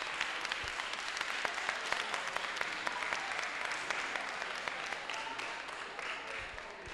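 Audience applauding in a hall, many hands clapping at once; the applause dies down near the end.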